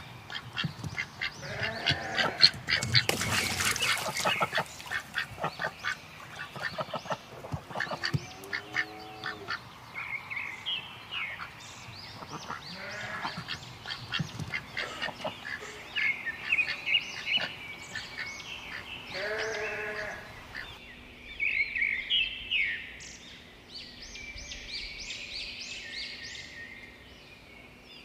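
A string of recorded animal calls, mostly quacking and other bird calls following one another closely. About three-quarters of the way through the sound changes abruptly to higher, chirping calls.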